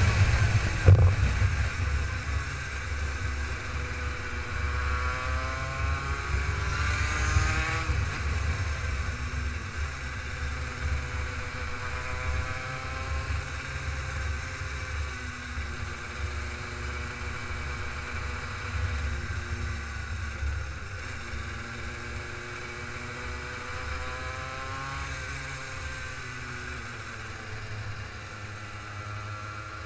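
Racing kart engine heard from on board, its pitch climbing and dropping again and again as the throttle is opened and closed around the lap, over a heavy low rumble. A sharp knock about a second in is the loudest moment.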